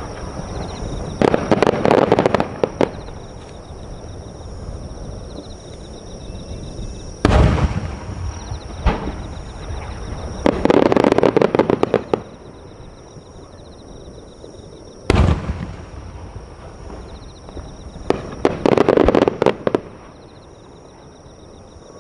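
Aerial firework shells bursting overhead: two deep booms about eight seconds apart, and three spells of dense crackling from crackle stars, each lasting a second or two.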